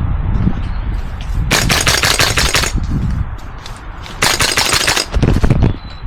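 Airsoft rifle firing two full-auto bursts, each about a second long, the second one a couple of seconds after the first, the rapid shots clacking over a steady low rumble.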